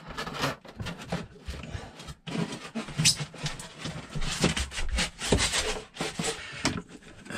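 Irregular knocks, rubs and scrapes from wedges being worked in by hand around lithium batteries in a wooden compartment, to stop the batteries shifting.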